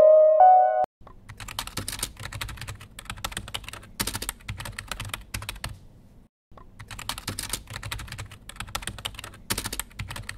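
Typing on a keyboard: a fast, irregular run of key clicks, broken by a short pause about six seconds in, then more typing. It starts just after the last notes of a piano tune stop, about a second in.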